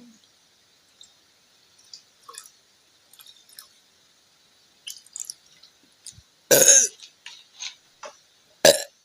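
A woman burping after gulping carbonated Appy Fizz soda: a loud burp about six and a half seconds in and a second, shorter one near the end, with faint small clicks before them.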